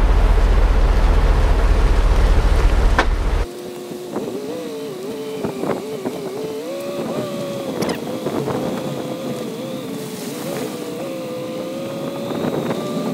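Chevrolet Suburban running on a logging road, heard from a camera mounted on the outside of the vehicle: heavy wind rumble on the microphone for the first three seconds or so, then after an abrupt cut a quieter engine drone whose pitch wavers up and down.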